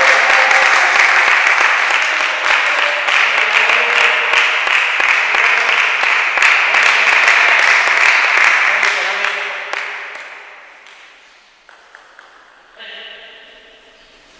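Spectators clapping and calling out after a table tennis point, dying away about ten seconds in; near the end a voice speaks briefly.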